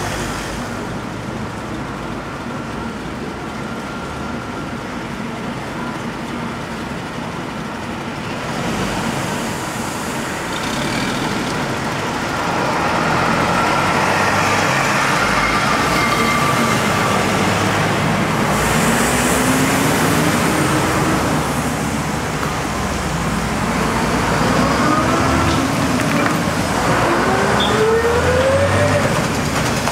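Street traffic: cars driving past, growing louder about halfway through, with engines rising in pitch as they pull away near the end.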